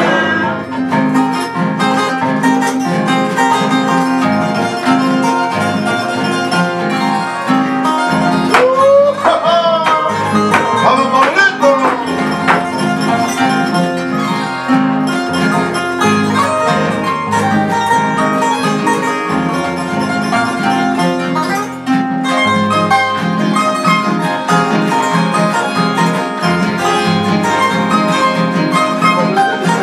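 An Andean harp and an acoustic guitar playing a lively folk tune together, the harp's plucked bass notes steady underneath. A voice rises briefly over the music about nine to twelve seconds in.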